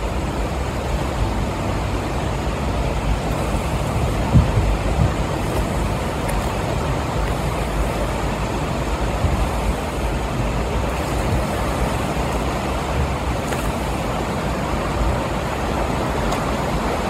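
Steady rushing of a fast, swollen river in flood, with a couple of low thumps about four to five seconds in.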